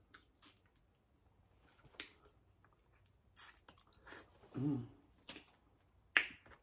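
Boiled shrimp being peeled by hand: scattered sharp, wet clicks of shell cracking and pulling away, mixed with mouth smacks. There is a short hummed 'mm' a little past the middle.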